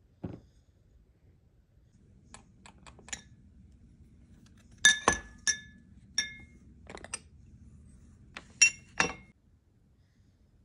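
Lids being handled on small white porcelain bowls, clinking against them: about a dozen light, ringing clinks, the loudest around the middle and near the end. A single soft thump comes just after the start.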